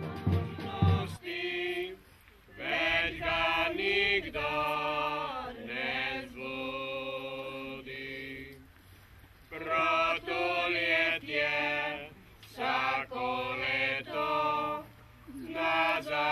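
A dance tune with a beat stops about a second in. After it comes slow unaccompanied singing: voices hold long notes in phrases, with short breaks between them.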